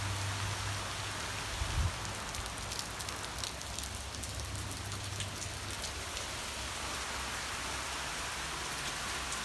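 Heavy rain pouring down in a steady hiss, with scattered drops ticking close by and a brief knock about two seconds in.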